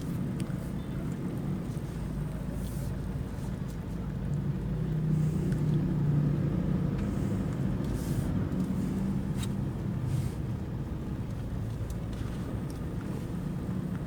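Toyota Fortuner's 2KD-FTV 2.5-litre four-cylinder turbo-diesel and road noise heard from inside the cabin while driving, a steady low drone that grows louder for a few seconds around the middle, with a few faint clicks.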